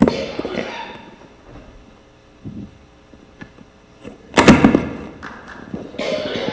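Handling noise on a live handheld microphone: a sharp knock at the start, then a loud run of thumps and rubbing about four and a half seconds in, as the microphone is handled and changed over at the pulpit.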